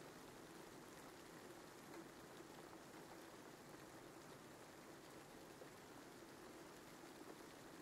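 Near silence: a steady faint hiss of background noise with a faint low hum.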